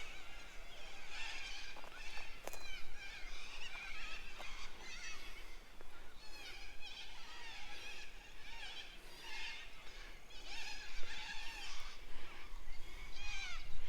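A chorus of birds calling: many short, chirping notes that rise and fall, overlapping and continuing throughout, with a single brief click about two and a half seconds in.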